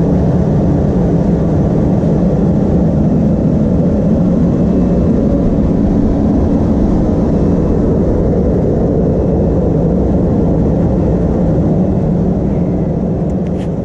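A vehicle engine running steadily, a loud even low rumble with a faint hum in it.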